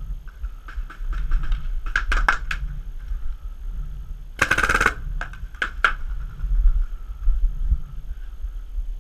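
Paintball markers firing: scattered pops, a quick group of about five shots at around two seconds, then a rapid burst of many shots about four and a half seconds in, followed by three single shots a third of a second apart.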